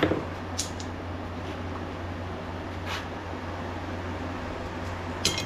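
A few sharp metallic clicks and taps from small metal parts and tools being handled while a snap ring and bearings are fitted into a grinder wheel. The two loudest come at the very start and near the end, over a steady background hum.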